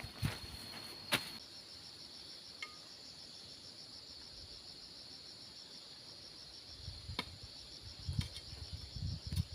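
Insects chirring in a steady, fast high-pitched trill, with a few sharp clicks and some low knocks in the later part.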